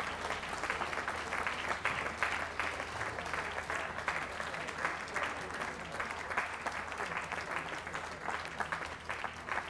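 Audience applauding steadily, for a dog show group winner as it is announced into the Best in Show ring.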